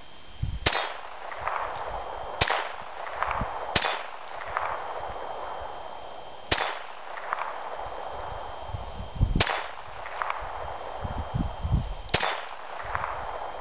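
Ruger Mark III Standard .22 pistol firing six single shots a second or few apart, each followed shortly by a fainter clang of a bullet ringing a steel target.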